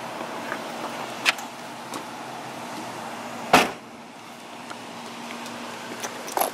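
Steady outdoor hum of a parking lot, with a few light clicks and one sharp knock about three and a half seconds in.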